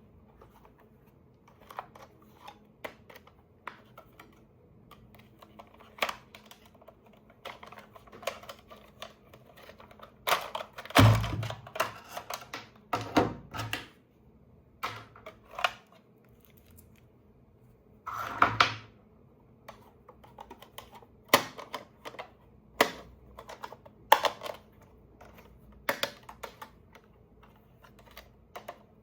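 Hands handling plastic toy parts and packaging: irregular clicks and taps, with louder bursts of rustling clatter and a thump about eleven seconds in.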